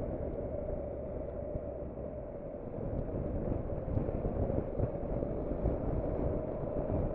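Steady wind and road rumble on the microphone of a moving motorcycle, muffled by wind-noise reduction, a little louder from about three seconds in.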